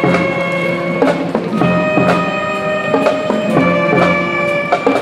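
High school marching band playing while on the march: held brass chords that change every couple of seconds over steady drum beats.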